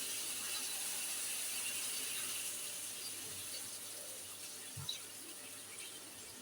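Water poured into a kadai of frying curry masala, a steady stream that slowly fades.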